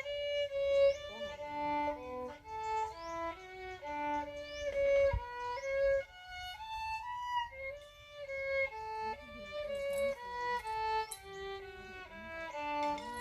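Solo violin playing a classical melody, one sustained note after another in flowing phrases.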